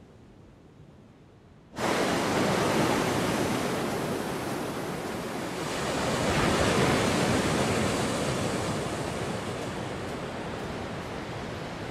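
Ocean surf breaking and washing up a sandy beach: a steady roar of waves that cuts in suddenly about two seconds in after faint room tone, swells as a wave breaks around the middle, then eases a little.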